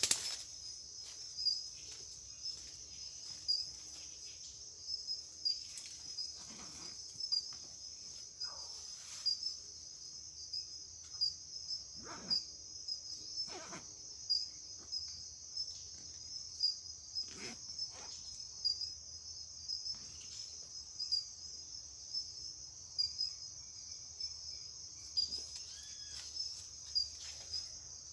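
A chorus of insects, likely crickets, trilling steadily in one high pitch, with scattered short clicks and rustles close by.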